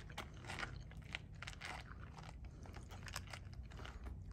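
Faint, irregular crunching of footsteps in cold, dry snow.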